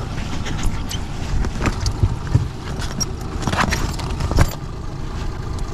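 Low wind rumble on the microphone, with several short knocks and rustles of handling; the loudest knock comes about four and a half seconds in.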